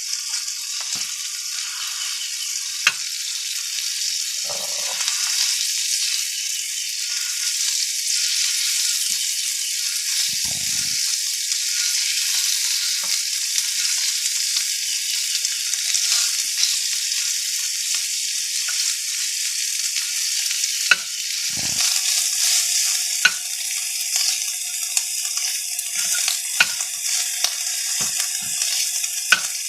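Sausage chunks sizzling steadily in a hot non-stick pan, with a metal spoon now and then clicking and scraping against the pan as it stirs them.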